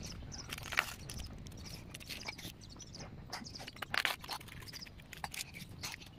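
Plastic toy excavator and toy loader being pushed and scraped through dirt by hand: irregular small clicks and scratches.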